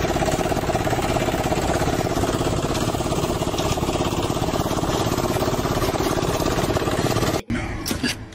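A lawn mower's small engine running steadily with a fast, even chug. It cuts off abruptly near the end.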